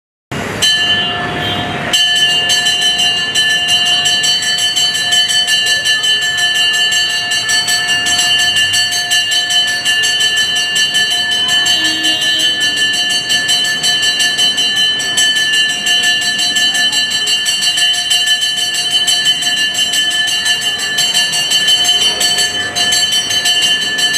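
Temple bell ringing rapidly and without a break, a steady metallic jangle with several fixed ringing tones, accompanying the lamp offering (aarti) to the deity. It comes in about half a second in and grows fuller at about two seconds.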